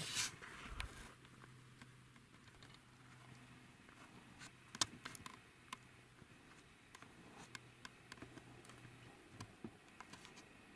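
Near quiet, with a brief soft rustle at the start and faint scattered small clicks, the sharpest about five seconds in.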